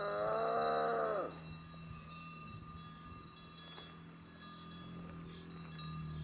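Insects chirping steadily in a high, pulsing trill. At the start a single drawn-out pitched call is held, then drops in pitch and ends about a second in.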